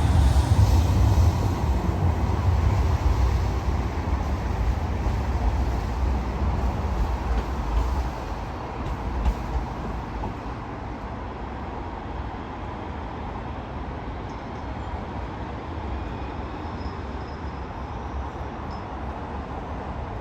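Manchester Metrolink Bombardier M5000 tram running past on the rails, a low rumble loudest at first that fades away over the first eight seconds or so, with a brief clack near nine seconds, leaving a steady quieter background noise.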